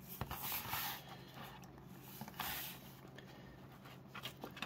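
Faint rustling and a few light clicks of hands handling a plastic action figure, with two soft swishes and small clicks near the end.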